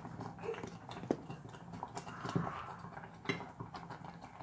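A spatula scraping cooked minced beef off a plate into a saucepan of tomato sauce, with a few sharp taps of the spatula against the plate and pan.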